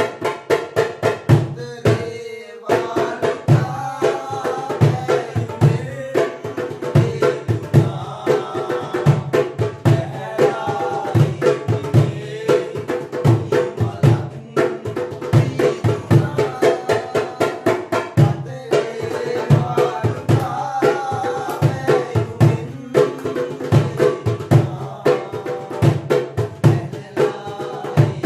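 Darabuka (goblet hand drum) playing a fast, dense rhythm over the melodic backing music of a Sinhala song, with a short break in the drumming about two seconds in.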